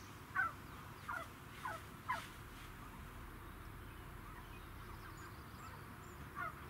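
Young turkeys giving short, falling, whistled peeps: four in the first two seconds or so and one more near the end.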